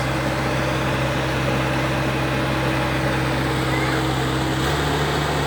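Engine-driven rice threshing machine running steadily with a constant mechanical hum; about four and a half seconds in, its pitch steps up slightly.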